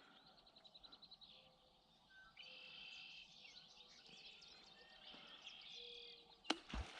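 Faint birdsong: a rapid high trill in the first second, then several high whistled calls. A single sharp knock with a low thump comes near the end.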